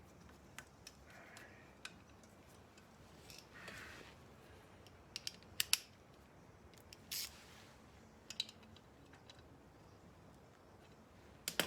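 Scattered light clicks and short rustles of hands working with wiring and small electrical connectors, with the sharpest pair of clicks about five and a half seconds in.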